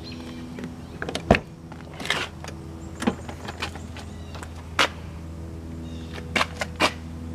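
Several sharp clicks and knocks from the open driver's door of a 1996 Corvette Grand Sport being handled, over a steady low hum.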